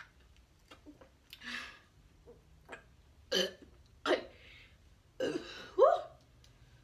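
A girl drinking from a plastic bottle, then letting out a run of short burps. The last burp, about a second before the end, is longer and rises in pitch.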